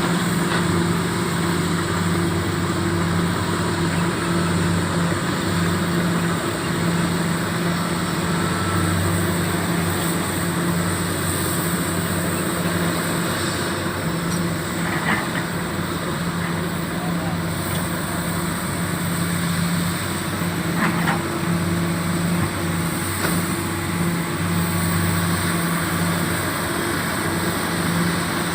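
Komatsu PC400 excavator's diesel engine running steadily under working load, with its deep hum swelling slightly now and then.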